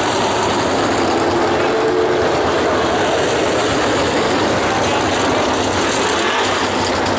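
Winged sprint car V8 engines running on a dirt oval, a steady loud wash of engine noise with no single car passing out of it.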